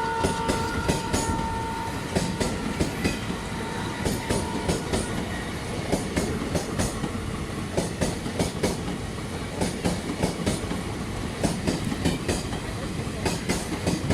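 Passenger train rolling past, its wheels clacking over rail joints in quick uneven groups over a steady rumble of the coaches.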